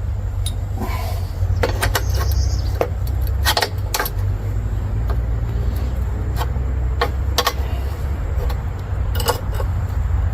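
Scattered light metal clicks and clinks of parts being handled while the spark plug lead is refitted for a spark check, over a steady low rumble.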